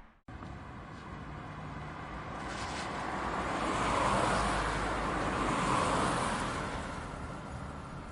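Road traffic passing by: tyre and engine noise swells to a peak about four seconds in and again about six seconds in, then fades, after a brief break near the start.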